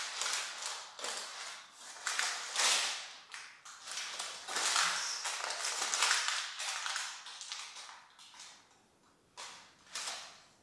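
Baking-paper lining crinkling and rustling as a sticky date and nut mixture is pressed down into a tray with a spatula and by hand, in a run of irregular rustles that thin out near the end.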